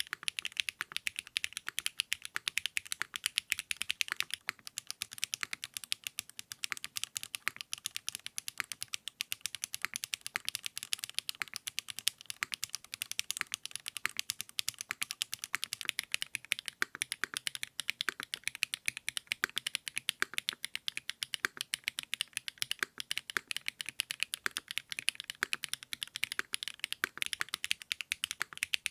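Fast, continuous typing on a custom mechanical keyboard with 80Retros x HMX KD400 switches: a dense run of crisp keystroke clacks, several a second, without pause.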